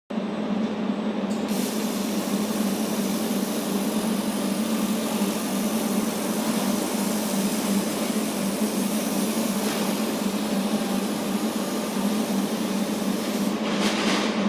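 Steady workshop machinery noise with a constant low hum, and a higher hiss joining about a second in.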